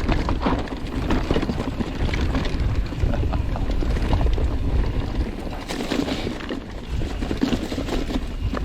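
Mountain bike riding fast down a rocky dirt trail: wind rumbling on the microphone over tyre noise on loose rock, with scattered rattles and knocks from the bike.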